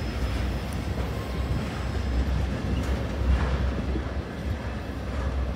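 Freight train of tank cars rolling past at a steady speed: a continuous low rumble of steel wheels on the rails.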